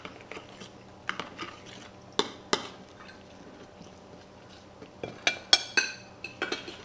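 Scattered clinks and knocks of a plate and utensil during a meal, a handful of separate taps with a cluster of ringing clinks near the end.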